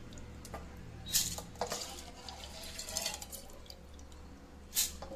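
Kitchen utensils and dishes clinking and knocking, with sharp clatters about a second in and again near the end.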